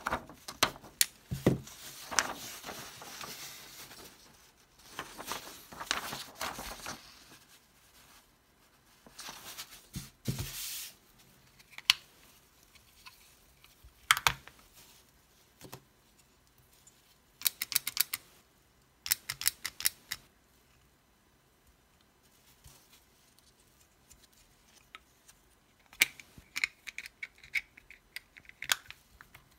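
Handheld plastic paper corner rounder punch being worked and handled: sharp plastic clicks and snaps mixed with paper rustling and sliding. Quick runs of clicks come in the middle and again near the end as the plastic housing is worked open.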